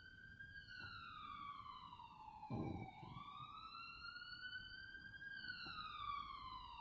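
Recorded emergency-vehicle siren wailing through a laptop speaker, its pitch sweeping slowly down and up, about one rise and fall every five seconds. A soft thump about two and a half seconds in.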